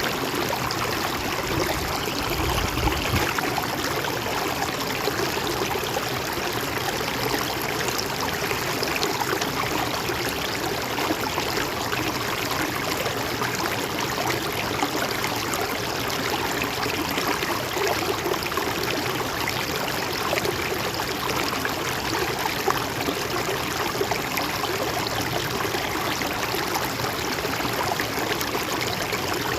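A river or stream flowing over rocks, a steady rushing with fine splashing and gurgling, unbroken throughout.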